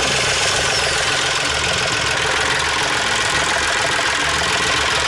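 Sailboat's inboard diesel engine idling steadily at close range in its open engine bay, with a loud hiss over the engine clatter. The engine is running with seawater spraying from a chafed raw-water cooling hose, the leak behind its overheating alarm.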